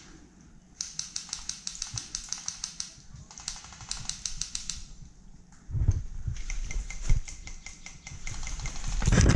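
Airsoft gun firing three strings of rapid, evenly spaced shots that sound as quick clicking. Heavy close rustles and thuds come between the second and third strings and at the very end, which is the loudest moment.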